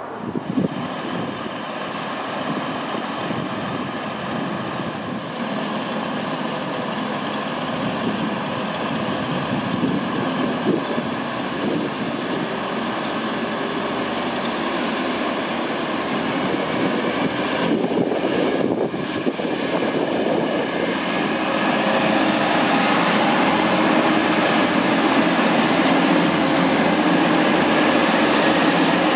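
TransPennine Express Class 185 diesel multiple units, their underfloor diesel engines running steadily. A high whine comes in a little past halfway, and the sound grows louder over the last several seconds as a unit moves past on the near track.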